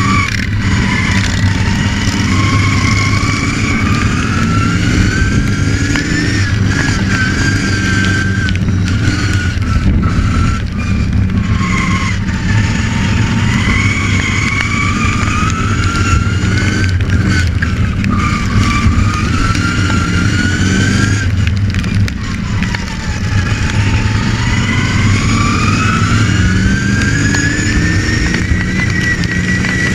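Racing ride-on lawn mower's engine running hard, picked up close by a camera mounted on the mower, its pitch rising and falling with the throttle. It slows twice, about a third and three quarters of the way in, then picks up speed again.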